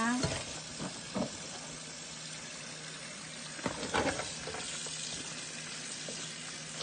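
Kitchen tap running steadily into a stainless steel sink while crabs are rinsed under the stream, with a few knocks and clatters of crab shells against the sink, around a second in and again about four seconds in.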